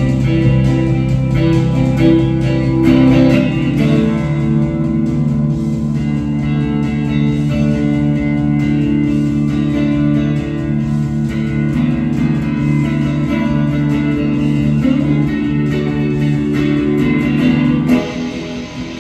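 Electric guitar playing raw psychedelic rock over sustained low droning notes. The music drops back suddenly about a second before the end.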